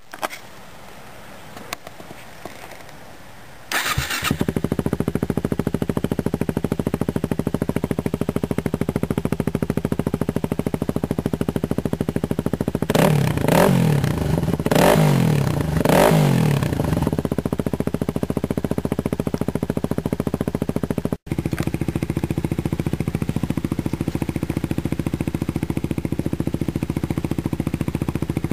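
2009 Yamaha WR250X's 250 cc single-cylinder four-stroke engine breathing through a Delta Barrel 4 slip-on exhaust: it starts about four seconds in and settles into a steady idle, is revved three times in quick succession around the middle, then idles steadily again.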